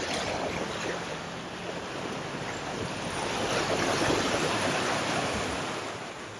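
Rushing, splashing water of a flooded ford, swelling to its loudest around four seconds in and easing off near the end.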